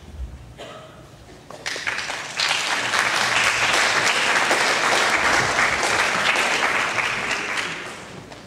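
Audience applauding in a school auditorium. The clapping starts about a second and a half in, builds to full strength, and dies away near the end.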